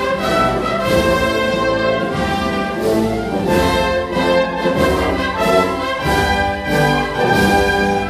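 Spanish wind band playing a processional march, the brass holding full sustained chords.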